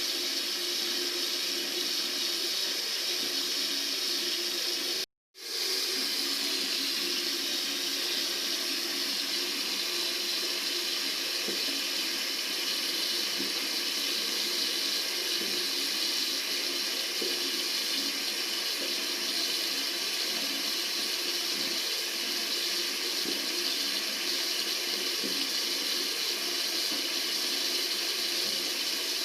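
Tap water running steadily from a faucet. It cuts out completely for a split second about five seconds in, then resumes.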